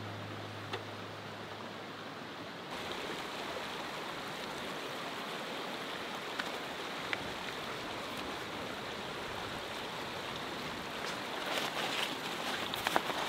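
Steady outdoor background noise. Near the end come a run of sharp clicks and fabric rustling as an REI Flexlite folding camp chair's shock-corded poles and nylon seat are fitted together.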